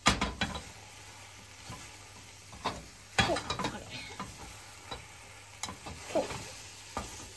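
Beaten egg sizzling in a rectangular tamagoyaki pan over a gas flame, while a slotted spatula scrapes and taps against the pan several times to fold and roll the omelette.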